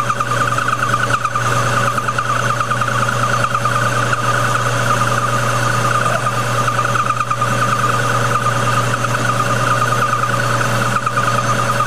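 Metal lathe running while turning down a 1-inch 6061 aluminium bar: a steady low hum with a continuous, rapidly wavering higher whine over it.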